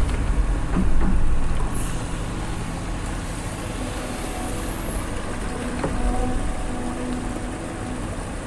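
Large tracked excavator's diesel engine running steadily while it digs, loudest about a second in, with a faint whine coming and going in the second half.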